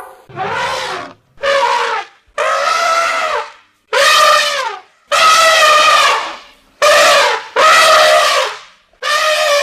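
Stock elephant trumpeting sound effect, used as a mutant woolly mammoth's cry: a run of about eight loud trumpet calls, each a second or so long with short gaps between, several dropping in pitch as they end.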